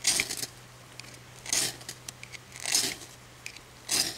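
A fire steel (ferrocerium rod) scraped hard with a striker four times, about a second and a quarter apart. Each stroke is a short, harsh rasp that throws sparks onto dry grass tinder.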